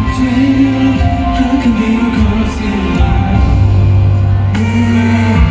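Live concert music through an arena sound system: a slow song with long-held low bass notes.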